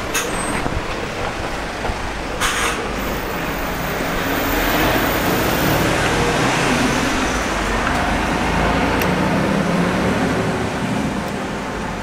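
Street traffic noise with a heavy vehicle's engine passing close by, swelling over several seconds and then easing off.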